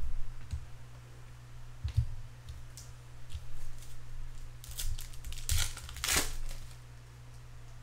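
A baseball card pack's wrapper being torn open and crinkled, in a few short rips near the end, with light handling taps before them and a low steady hum underneath.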